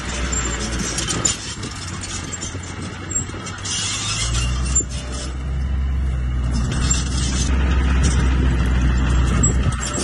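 Small crawler bulldozer's diesel engine running, pulling harder and louder from about four seconds in as it pushes dirt, with metal track clatter and rattles over it.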